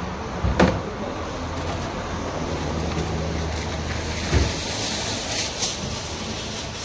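Steady background noise with a low hum, broken by a couple of short knocks and some faint high clicks.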